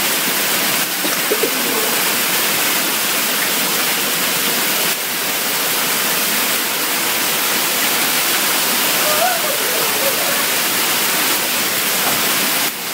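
Hard rain pouring down in a steady, dense rush, with no let-up.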